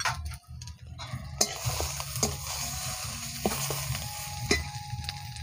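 Spice paste (onion, garlic and ginger pastes with chilli powder and turmeric) frying in oil in a metal karai, sizzling from about a second and a half in, while a steel spatula stirs it, with a few sharp clicks of the spatula against the pan. This is the masala being fried down.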